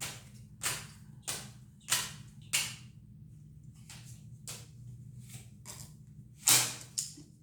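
A deck of tarot cards being shuffled by hand: short papery slaps of cards, about every two-thirds of a second at first, fainter in the middle, with two louder slaps near the end.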